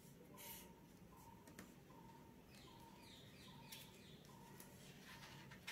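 Near silence: faint room tone, with faint short chirps repeating at an even pace a little under once a second.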